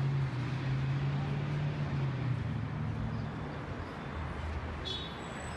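Street traffic: a nearby motor vehicle's engine runs with a steady low hum over general city noise, its pitch dropping partway through.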